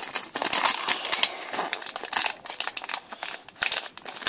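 Foil Pokémon TCG booster pack wrapper crinkling and rustling in a dense, irregular run as it is handled and opened.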